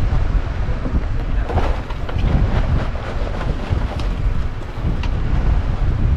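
Wind buffeting the microphone over the wash of the sea beside the boat, a steady rumbling noise, with a few light knocks about four and five seconds in.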